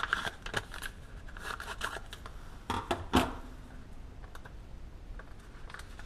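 Scissors snipping open a paper seed packet, with crinkling paper. There is a sharper knock about three seconds in, then only light handling ticks.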